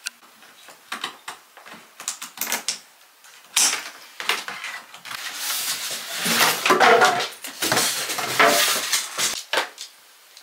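Unboxing a glass aquarium: scattered clicks and snaps as the plastic packing straps are cut, then several seconds of cardboard scraping and rustling as the box is slid up off the glass tank.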